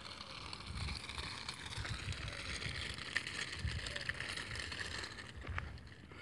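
Wind rumbling on the microphone in uneven gusts, over a steady outdoor hiss.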